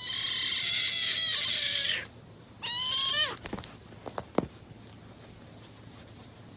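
Kitten mewing: one long high-pitched meow, then a shorter one that drops in pitch at its end, followed by a few soft knocks as it is handled.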